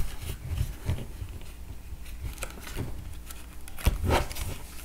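Handling noise from a Kydex Phlster Floodlight holster: small scrapes, clicks and rustles as its shock cord and washers are pulled back through the loops, with a sharper knock about four seconds in.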